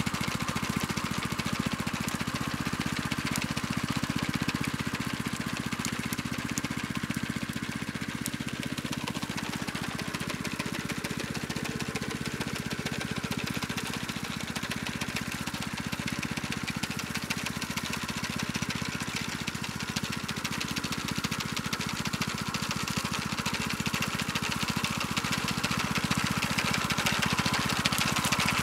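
Small petrol engine of a homemade walk-behind sickle bar mower running steadily as it mows through weeds, a little fainter in the middle as the mower moves away and growing louder near the end as it comes back.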